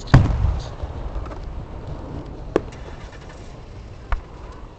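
Fireworks: a deep aerial shell burst just after the start, its boom rumbling away over a second or two, then two sharp single cracks, one about two and a half seconds in and another about four seconds in.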